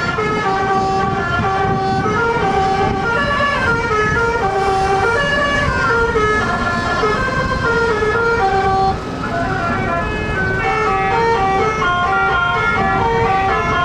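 Bus telolet horn: a multi-note air horn playing a quick stepped melody over and over, with a low rumble underneath. The tune breaks off briefly about nine seconds in, then resumes.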